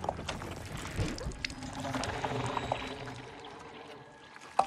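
Wet, slimy creature sounds of a giant monster's fleshy tentacles sliding and squelching around a tree trunk, with scattered clicks and a low rumble that swells and fades in the middle.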